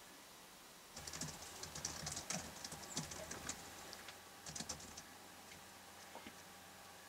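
A great tit scrabbling and pecking among sunflower seeds in a wooden feeder: a quick, irregular run of small clicks and rustles that starts about a second in and stops about four seconds later.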